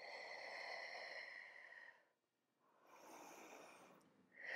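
A woman's audible, paced breathing as she works through a Pilates exercise: a long breath, a softer one after a short pause, and a louder one beginning near the end.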